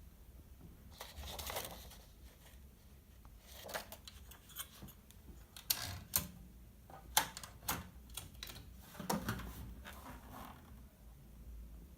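Olivetti Valentine portable typewriter's mechanism clicking and clacking at irregular intervals, sharpest in the middle stretch.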